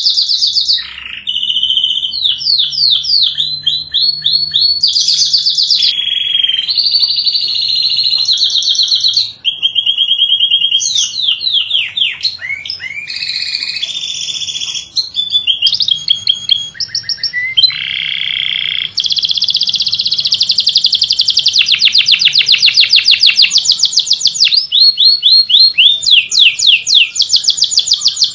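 Domestic canary singing a continuous song of fast trills and rolls, switching to a new trill pattern every second or two.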